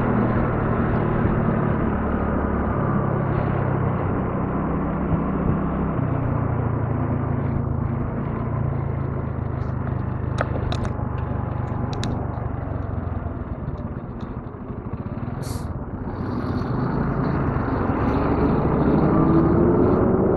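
Honda Navi 110 scooter's small single-cylinder engine running steadily under way. It eases off about fourteen seconds in, then picks up again with a rising pitch near the end.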